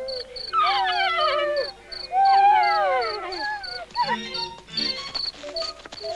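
Film score of long sliding tones that fall in pitch, breaking into shorter stepped notes near the end, over a high chirping pulse about five times a second.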